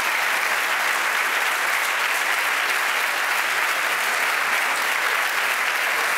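A large audience in a packed hall applauding, steady sustained clapping from many hands.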